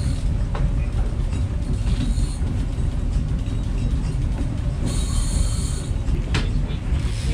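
Steady low rumble of the fishing boat's engine under way, mixed with wind on the microphone. A short high buzz comes about five seconds in, followed by a single sharp click.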